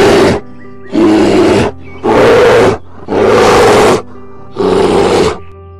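Loud bear roars, five in a row about a second apart, over steady background music.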